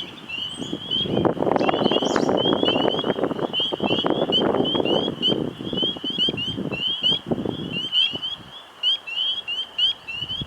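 Gusting wind noise with a steady run of short, high chirps, several a second, calling on throughout; the wind is the louder sound and eases off about eight seconds in.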